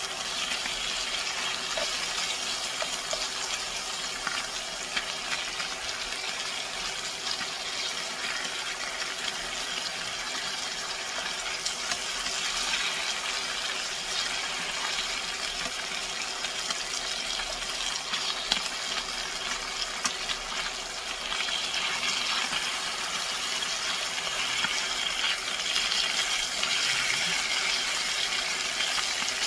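Thinly sliced pork belly sizzling steadily in a hot frying pan, with occasional small pops and clicks.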